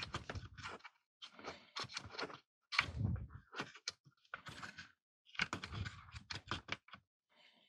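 Hands working with small tools and electrical cord at a workbench: irregular bunches of small clicks and rustles with some dull knocks, coming in four or five spurts with short pauses between.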